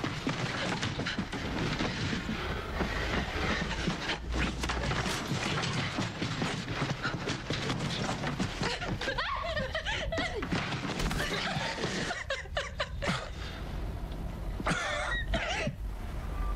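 A man and a woman struggling: hurried footsteps, scuffling and knocks, with the woman's cries and gasping, sobbing breaths in a few short stretches.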